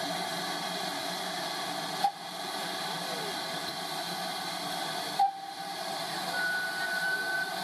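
Steam hissing steadily from a standing GWR 2800-class steam locomotive. Two short sharp clicks come about two and five seconds in, and a faint thin whistle tone starts near the end.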